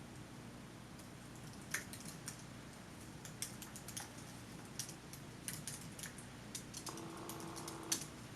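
Faint, irregular light clicks and taps, about one or two a second, over a low steady hum.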